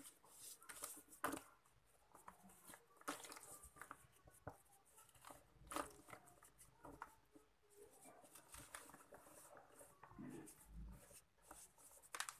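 Quiet, irregular crackling and gritty hissing of soft sand-cement being crumbled by hand, with grains and powder pattering down into a basin of water.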